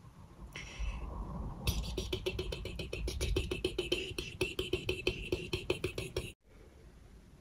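Squeeze bottle of honey or syrup sputtering as it is drizzled: a fast, even run of crackling pulses, about ten a second, lasting some four seconds and cutting off suddenly.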